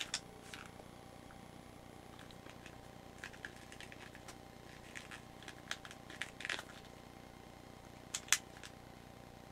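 Marushin Taurus Raging Bull heavyweight gas revolver handled and turned in the hand: scattered small clicks and knocks, a cluster of them in the middle and the loudest about eight seconds in.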